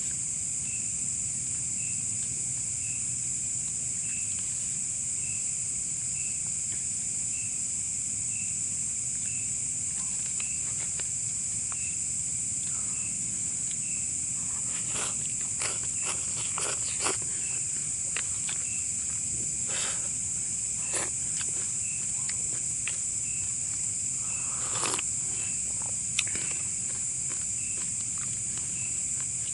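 Night-time insect chorus: a steady high-pitched buzz with a regular chirp about twice a second. From about halfway through, scattered clicks and rustles are heard.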